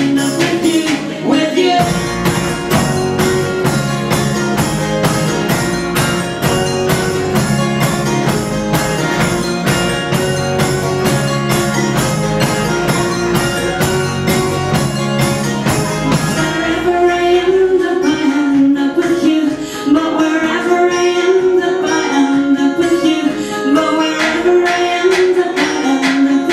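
A live band performing a song with a steady, busy percussion beat and singing. A low bass part runs under the first two-thirds and drops out, leaving the voice over lighter accompaniment.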